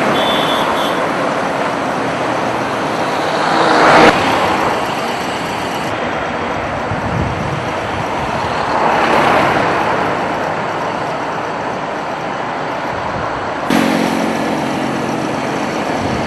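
Road traffic noise, a steady rush of passing vehicles that swells about four seconds in and again about nine seconds in as vehicles go by.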